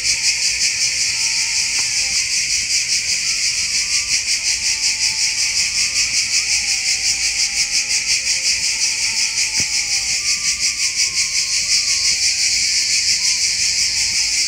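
A dense, high-pitched cicada chorus that pulses rapidly and evenly throughout.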